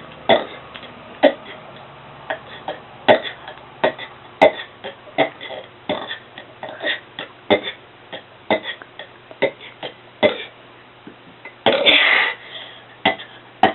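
A person burping deliberately in rapid succession, short burps about two a second, with one longer, louder burp about twelve seconds in.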